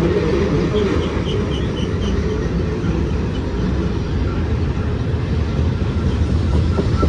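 Freight cars of a BNSF intermodal Z train rolling past, a steady rumble of steel wheels on rail. A faint high tick repeats about three times a second in the first couple of seconds.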